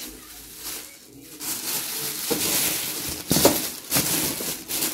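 Plastic bag rustling and crinkling as things are packed into it, starting about a second and a half in, with several sharper crackles.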